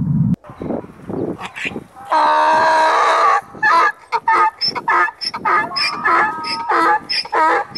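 Donkey braying: one long harsh cry about two seconds in, then a quick run of short alternating hee-haw calls, about three a second.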